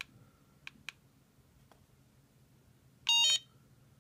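A few faint clicks, then about three seconds in a short electronic beep jingle of several stepping tones from an Anypower T Power Plus Alpha dashcam battery pack: the unit's signal sound as its button is pressed to show and set the low-voltage cutoff.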